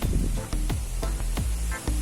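Background music with a steady beat: heavy bass and regular drum hits under held tones.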